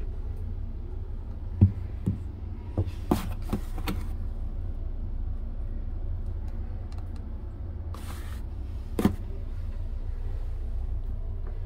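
Steady deep rumble of an Amtrak Superliner car in motion, heard from inside the car. Several sharp clicks and knocks come in the first four seconds, and one more about nine seconds in.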